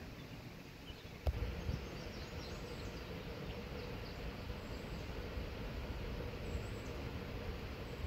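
Outdoor rural ambience: a low rumble on the microphone and a few short bird chirps, with a sharp click about a second in followed by a faint steady hum.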